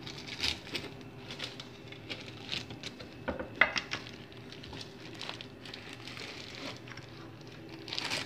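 Aluminium cake pan and embossed metal cake board handled while the pan is turned over to unmould a cake: scattered light knocks and scrapes of metal with plastic crinkling, the sharpest knock about three and a half seconds in.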